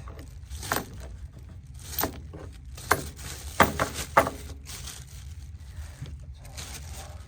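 A plastic bag rustling and crinkling as it is handled with loose nuts and bolts inside, with a handful of short sharp clicks and knocks, the loudest two a little past the middle.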